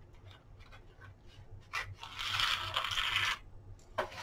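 Gimp trim cord being pulled through a hole in a lamp shade's edge while it is laced to the top ring: a rasping drag lasting about a second and a half, midway through. Light handling clicks come before it and a sharper click near the end.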